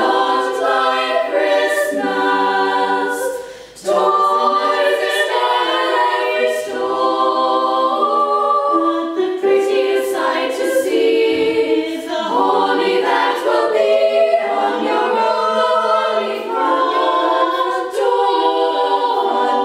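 A small group of young female voices singing a Christmas song in close harmony, holding notes together, with a short break about three and a half seconds in.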